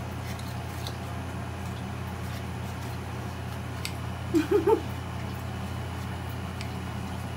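A steady low hum, with a short burst of three quick pitched vocal sounds about four and a half seconds in.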